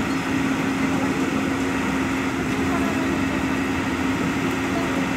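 Komatsu crawler excavator's diesel engine running steadily, with a constant droning hum.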